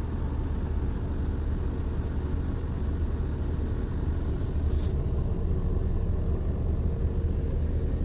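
Mercedes Actros MP4 truck's diesel engine idling with a steady low rumble, heard inside the cab. A brief hiss comes about halfway through.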